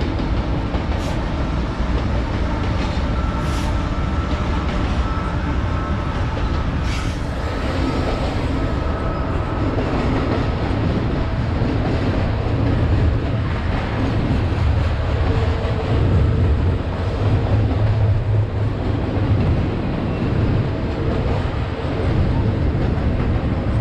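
Freight train passing close by: its trailing diesel locomotives run past, then double-stack container well cars roll by with a steady heavy rumble of steel wheels on rail. A few sharp clicks come in the first several seconds.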